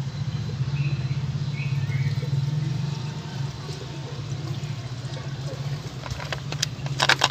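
Engine flush liquid poured from a small plastic bottle into an engine's oil filler neck, with a soft glugging trickle over a steady low hum. A few sharp clicks come near the end as the bottle knocks against the filler neck.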